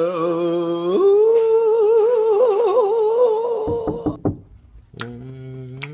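A voice singing one long held note as the end of a sung show jingle. It steps up in pitch about a second in, wavers with vibrato, and stops near four seconds, where a few knocks are heard. About five seconds in, a lower hummed note begins.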